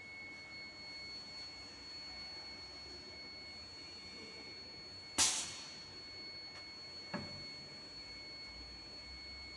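CNC wood lathe standing by with a faint steady hum and a thin high whine. About five seconds in comes one loud, sudden burst that dies away over about half a second, and a smaller one about two seconds later.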